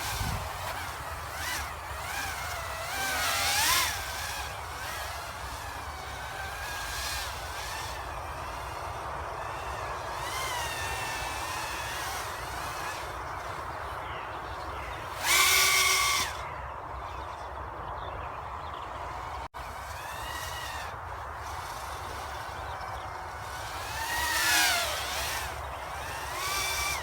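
EMAX Babyhawk micro FPV quadcopter flying: its 5000 KV brushless motors and three-blade 2.3-inch propellers whine, the pitch rising and falling with the throttle. Louder surges come a few seconds in, about halfway, and near the end.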